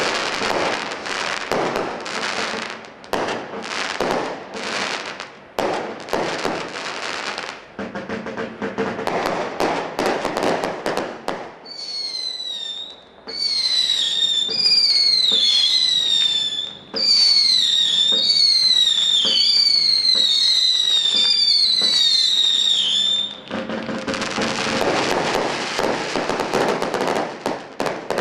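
Black Cat Equinox firework cake firing. It opens with a rapid run of shots and crackling bursts. For about twelve seconds in the middle comes a stream of overlapping shrill whistles, each falling in pitch. Near the end it returns to dense crackling bursts.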